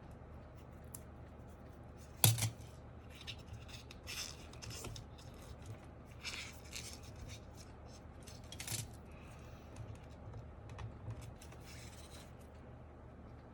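Handling noise from work on a mechanical keyboard: irregular scraping and rubbing with scattered light clicks, and one sharp click about two seconds in.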